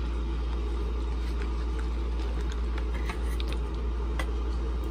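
Steady low room hum, with a few faint light clicks from a small plastic toy being handled on a table.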